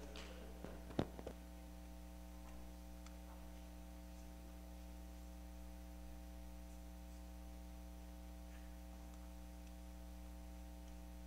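Steady electrical mains hum with several tones, as from a sound system left open between speakers. About a second in there is a single sharp knock, like a microphone being bumped.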